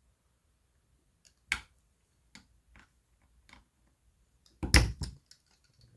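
Scattered light metallic clicks and taps as small parts and tools are worked against an air rifle's action while its pins are pushed out. There is a cluster of louder clicks and knocks near the end.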